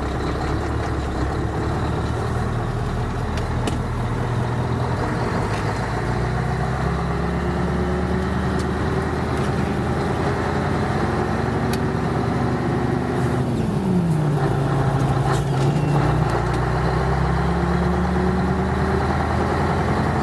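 Scania V8 diesel truck engine running, its note climbing slowly, dropping sharply about two-thirds of the way through, then climbing again.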